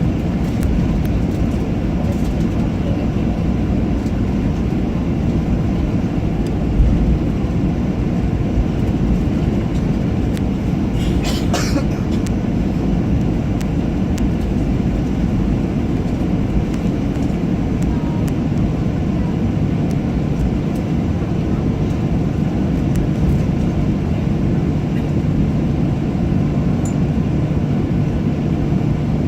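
Jet airliner heard from inside the passenger cabin: a steady low rumble of the engines and airframe, with a brief rattle about eleven seconds in.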